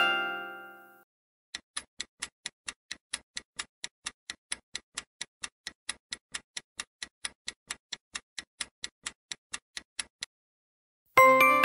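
Quiz countdown-timer sound effect: clock-like ticking at about four ticks a second, counting down the time to answer. A bright chime fades over the first second, and the same chime sounds again near the end.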